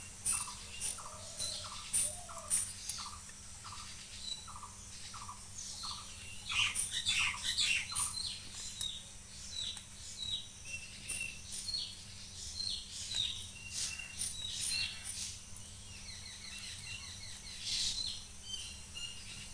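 Small birds chirping with many short, overlapping calls, joined over the first half by a lower note repeated about twice a second, and by a quick rattling trill near the end.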